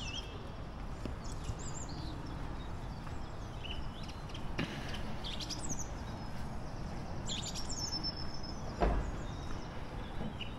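Small birds chirping and whistling in short calls over a steady outdoor background noise, with a sharp knock about four and a half seconds in and a heavier thump near nine seconds.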